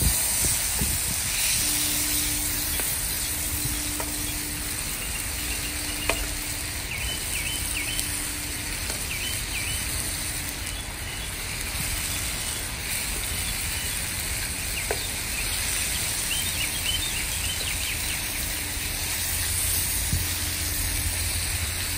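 Marinated chicken pieces sizzling and frying in oil in a pan over an open fire, a steady hiss with small crackles: the searing stage of chicken adobo before the broth goes in.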